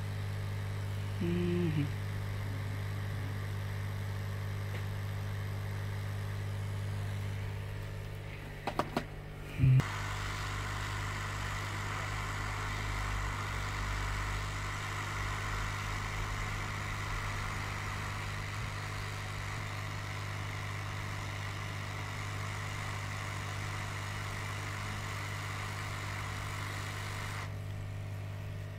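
Hot air rework station running with a steady hum. About ten seconds in, after a click, a broad airflow hiss comes up and holds until just before the end, then drops away, as the nozzle heats the U2 charging IC to reflow its solder onto the iPhone 6 logic board.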